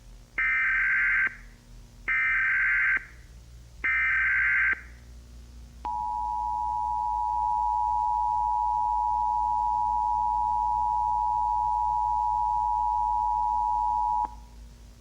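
Emergency Alert System tones: three one-second bursts of warbling digital header data, then the two-tone attention signal held steady for about eight seconds before it cuts off.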